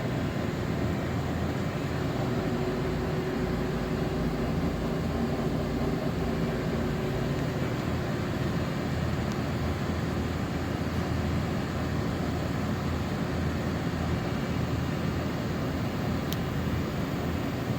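Steady machine-shop drone of machinery running, a constant noisy hum with a faint steady tone in it.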